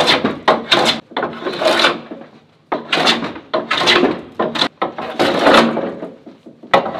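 Metal bench plane (jack plane) shaving the face of a glued-up birch board: a series of hissing cutting strokes, a few quick short ones at first, then longer strokes of about a second each, one after another.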